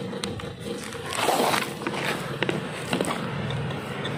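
A camera being knocked over onto dirt ground: a rushing scrape a little over a second in, followed by several sharp clicks and knocks as it tips and settles.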